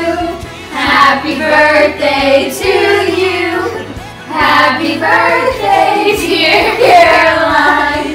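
A group singing together, children's voices prominent, in four short phrases with brief pauses between them.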